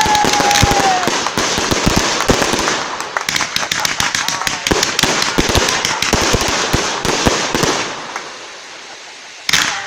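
Fireworks going off in quick succession: dense crackling and rapid bangs from a firework battery (cake), thinning out after about eight seconds, then one sharp bang near the end.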